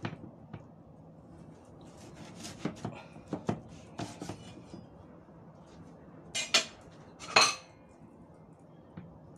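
Steel cleaver slicing through taro and knocking on a wooden chopping board: scattered short taps and knocks, then two louder knocks about six and a half and seven and a half seconds in.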